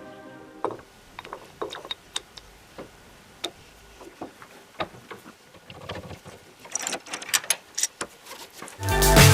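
Irregular sharp metallic clicks and taps from hand work on helicopter drive parts, as a freewheel pulley is fitted. Loud music with a beat comes in near the end.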